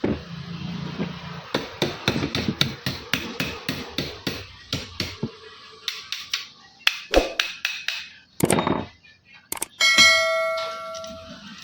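Metal being tapped and knocked repeatedly, about three or four light strikes a second, followed near the end by a metal part ringing with a clear, bell-like tone that fades over a second or so.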